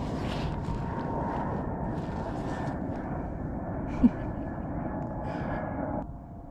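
A steady distant engine drone with a faint hum in it, and one short knock about four seconds in; the drone drops off suddenly near the end.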